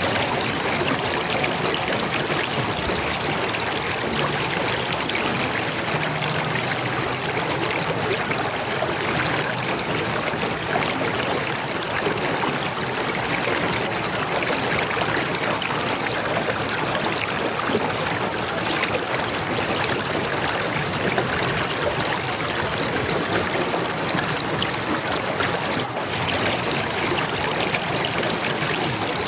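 Running water of a stream, flowing steadily with no change in pace, dipping briefly once near the end.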